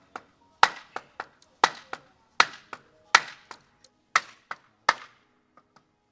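Hammer striking nails into the wood of a wooden garden door: a run of sharp blows, about one a second, with lighter taps between them.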